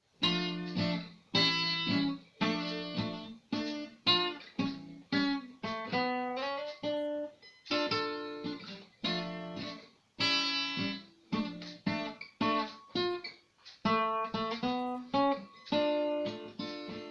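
Acoustic guitar playing a song's introduction: chords strummed and plucked in a steady rhythm, each ringing out and fading, with a short rising run of single notes around the middle.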